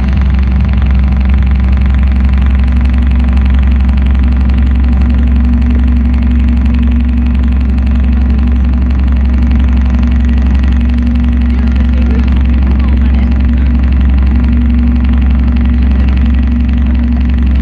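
Light-show soundtrack played over large outdoor loudspeakers: a loud, steady, deep rumbling drone with a low held tone that swells and fades several times.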